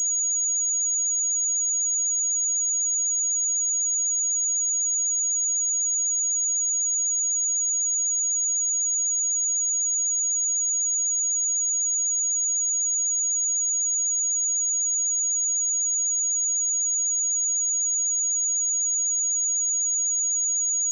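A pure 6746 Hz sine-wave test tone, a single high-pitched steady whistle held at constant level without a break.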